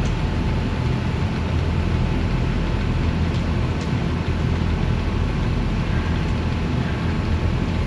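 Aronson 3,000 lb welding positioner's elevation drive running as it lowers the table: a steady low drone that does not change.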